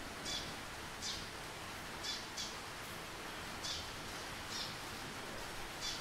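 Eurasian tree sparrow giving short chirps, about seven in all at roughly one a second, over a steady background hiss.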